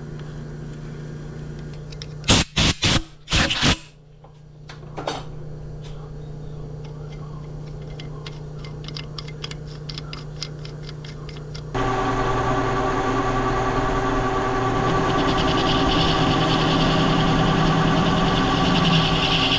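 Metal lathe in a machine shop, at work on a threaded steel bushing insert. A steady motor hum runs with a few sharp metallic knocks about two seconds in. Past the middle it steps up abruptly to a louder steady machine drone, and a higher hiss builds over the last few seconds.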